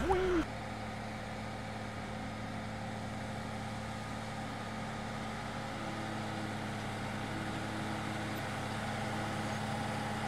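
Engine of heavy earthmoving equipment running steadily at an even, low pitch, as at idle.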